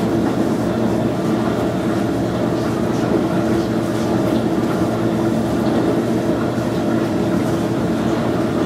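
A steady mechanical drone at a constant pitch and level, like a machine or motor running nearby.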